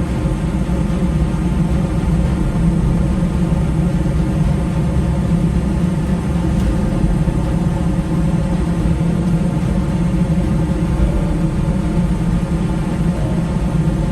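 Steady road and engine rumble of a car driving on the highway, heard from inside the cabin.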